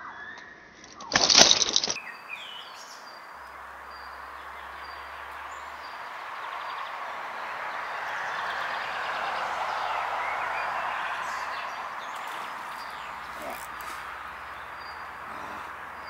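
Riverbank outdoor ambience: birds chirping over a steady rushing noise that swells in the middle and eases off. A short, loud burst of noise comes about a second in.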